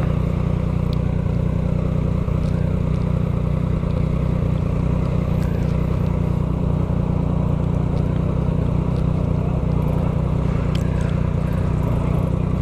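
Yamaha MT-09's three-cylinder CP3 engine running steadily through a full 3-into-1 Atalla straight-pipe exhaust with no silencer, held at an even pace with no revving.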